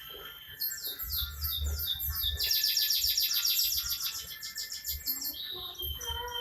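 A songbird singing: a run of quick high notes each sliding downward, then a fast continuous trill.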